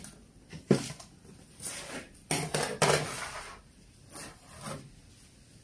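Kitchenware clattering as a steel mixing bowl, a cleaver and a cutting board are moved and set down on a wooden table. There is a sharp knock just under a second in, a quick run of knocks in the middle, and two lighter ones near the end.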